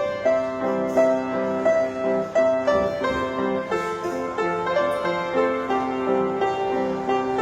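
Solo piano playing a melody over held chords, with a new note or chord struck about once or twice a second.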